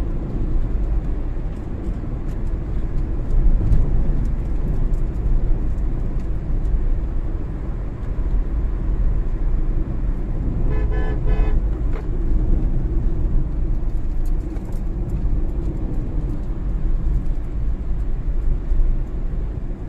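Steady low rumble of engine and tyre noise inside the cabin of a Tata Altroz hatchback with a 1.2-litre three-cylinder petrol engine, cruising. About eleven seconds in, a car horn sounds once for about a second.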